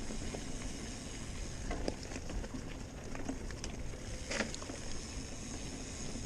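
Mountain bike rolling along a soft dirt trail: steady tyre and wind rumble on a chest-mounted microphone, with a few sharp clicks and rattles from the bike, the loudest about four seconds in.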